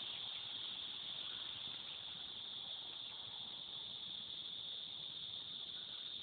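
Cicadas buzzing in chorus, one steady high-pitched drone without a break, really loud.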